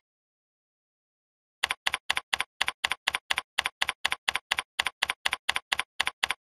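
Computer keyboard keystrokes typing out a terminal command, about four even clicks a second. They start about a second and a half in, after a silent gap, and stop just before the end.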